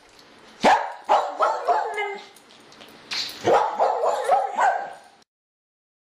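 A dog barking and yipping in two quick runs, cut off suddenly about five seconds in.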